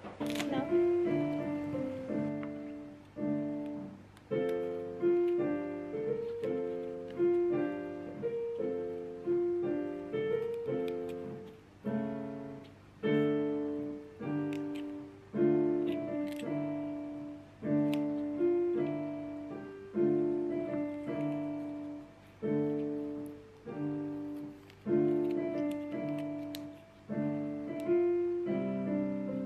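Background piano music: gentle, evenly paced phrases of single notes and chords.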